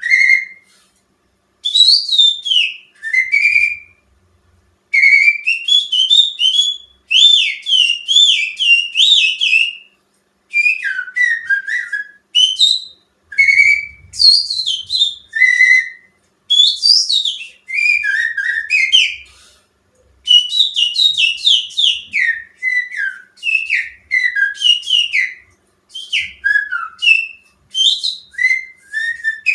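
Finger whistling imitating the song of a greater green leafbird (cucak ijo): fast rising and falling whistled notes in phrases of a few seconds, with short breaks between them. It is a lure call meant to set a caged cucak ijo singing.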